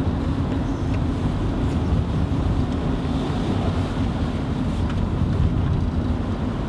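A motor vehicle driving along, its engine and road noise a steady low rumble.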